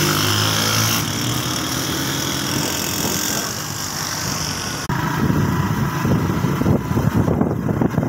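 Small motorcycle engine running at a steady pace while riding. About five seconds in, wind buffets the microphone in rough gusts over the engine.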